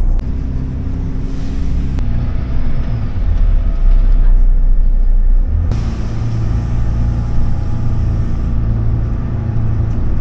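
A bus engine's steady low drone and road noise, heard from inside the moving bus on wet roads. The drone changes abruptly about two seconds and about six seconds in.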